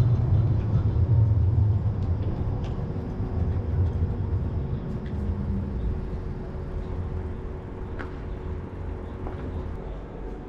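Low rumble of trams and road traffic at a city tram stop: a deep drone loudest at first that slowly fades, over a steady faint hum, with a few light clicks.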